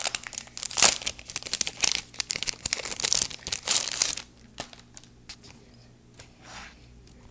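Plastic packaging crinkling and tearing as it is pulled open by hand, in quick dense crackles for about four seconds. After that it turns much quieter, with only a faint rustle or two.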